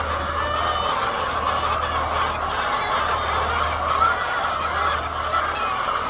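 A large flock of laying hens clucking and calling all at once, a dense, steady din of overlapping calls. A low steady hum runs underneath.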